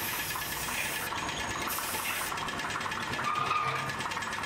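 Compressed-air paint spray gun hissing in short bursts as it sprays paint: the hiss stops about a second in, comes back briefly, then stops again. A steady mechanical drone runs underneath throughout.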